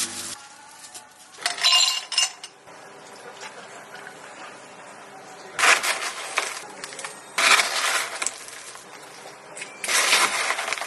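Clinking and rattling of glassware during drink-making, in four short bursts of about a second each.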